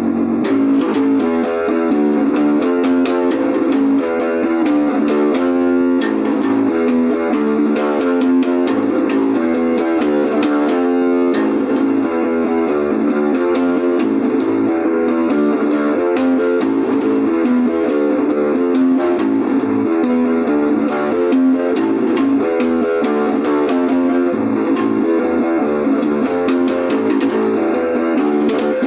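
Instrumental guitar music: a guitar playing quick runs of picked notes at a steady loudness.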